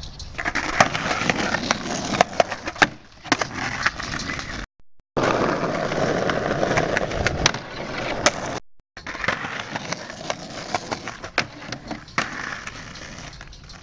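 Skateboard wheels rolling over pavement, with sharp clacks of the board popping and landing, broken twice by short silent gaps.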